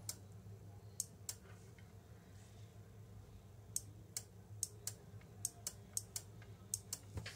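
Faint, irregular small clicks, about fifteen of them, most in the second half, as fingers handle the wire leads of a small homemade circuit board. A faint steady low hum lies underneath.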